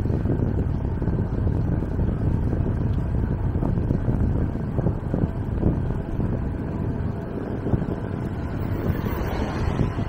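Wind buffeting the microphone of a camera on a moving bicycle: a steady low rumble.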